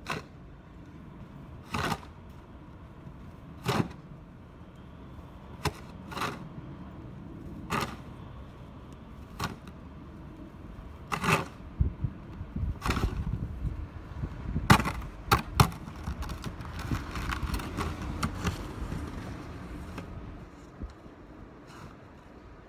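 Snow shovel scraping along the pavement and pushing snow, a sharp stroke about every two seconds, with a longer stretch of heavier scraping and thudding about halfway through.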